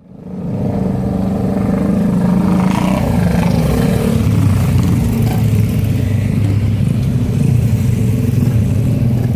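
Motorcycle engine running, fading in over the first half second; its note drops lower about four seconds in.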